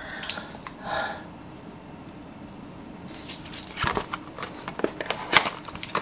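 Small cardboard box being handled and pulled open: a run of paper rustles and small sharp clicks and taps from about three seconds in.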